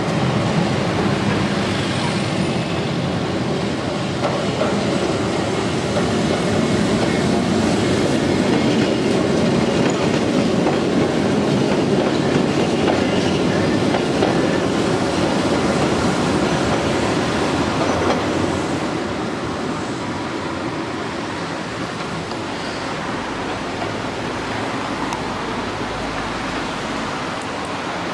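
Keihan Ishiyama-Sakamoto Line two-car electric tram running along street track, loudest as it passes close in the middle, then quieter from about two-thirds of the way through.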